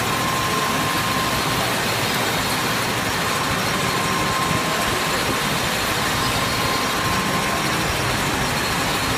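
Manual lathe running steadily while cutting a titanium bar, with a thin steady whine that breaks off about a second and a half in and returns partway through.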